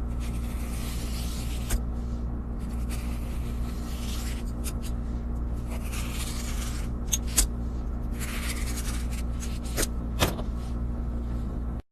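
A steady low machine hum with a scraping noise coming and going over it, and a few sharp clicks or knocks.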